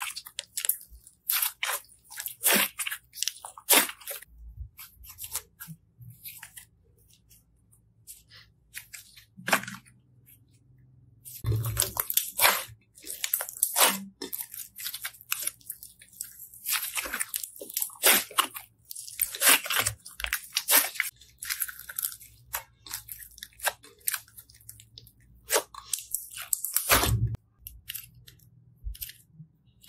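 Hands squeezing, pulling and pressing slime, giving irregular crackling clicks in uneven clusters with short pauses. There are two heavier squishes, about 12 seconds in and near the end.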